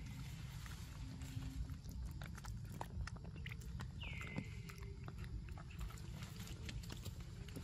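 Young macaques picking at and chewing food crumbs close by: scattered small clicks and taps over a low rumble. About four seconds in, a high call slides down in pitch and holds briefly.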